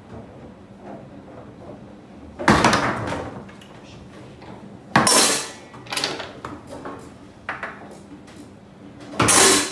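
Foosball table play: hard clattering knocks of the ball and rods against the table. Three loud hits come about two and a half, five and nine seconds in, each ringing briefly, with lighter knocks between.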